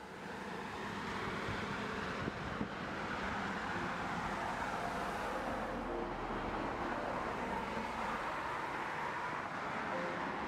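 Steady outdoor town background noise, a constant rush of distant road traffic, fading in from silence at the start.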